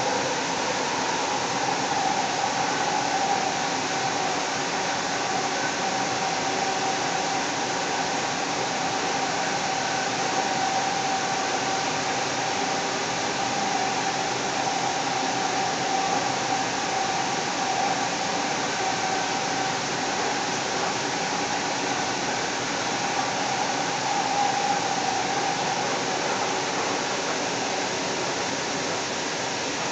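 Cabin noise of a Seattle Link light rail car running at speed: a steady rush of wheels and running gear with a steady whine that dips slightly in pitch near the start, then holds.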